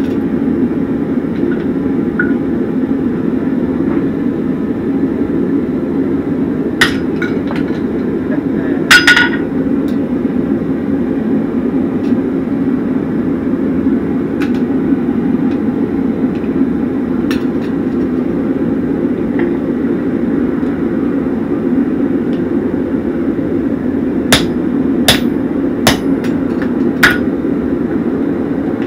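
Scattered sharp hammer blows on a chisel driven into red-hot horseshoe steel on a Hay-Budden anvil, punching a slot: a loud cluster of strikes about a third of the way in and a run of four quick strikes near the end, with single taps between. A steady low rumbling noise runs underneath.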